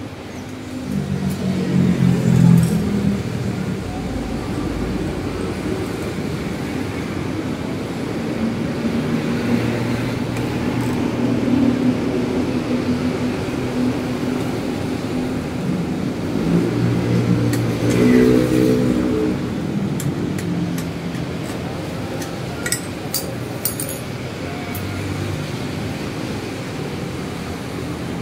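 Steady engine sound of passing motor vehicles, swelling and fading a few times. A few light clicks near the end.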